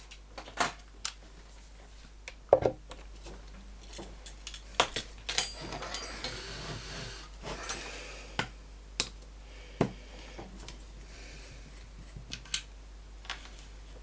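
Small hand tools and loudspeaker parts being handled on a workbench: scattered sharp clicks and taps, with a stretch of scraping about six to seven seconds in.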